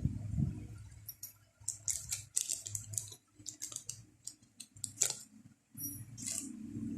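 Parts of a WE G17 Gen5 MOS airsoft pistol being handled during disassembly: a low thump at the start, then scattered small clicks and light clatter.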